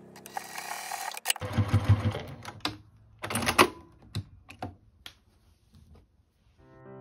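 Household sewing machine stitching through fabric in short runs, with a rattling stretch and a loud burst, then a few separate clicks as it stops. Piano music comes in near the end.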